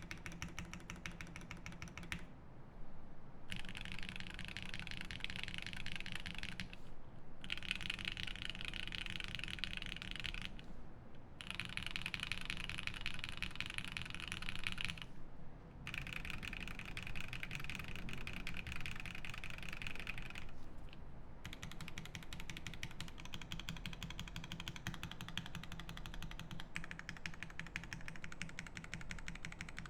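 Typing on a Swift65 mechanical keyboard with lubed Lavender switches in an aluminium plate and GMK keycaps: a continuous rapid patter of keystrokes, with brief breaks in the clacking every few seconds.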